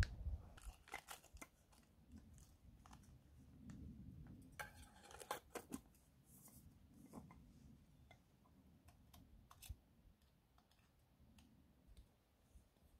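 Faint crinkling and clicking of an empty freeze-dried meal pouch being handled and packed away as trash: irregular small clicks, busiest about four to six seconds in.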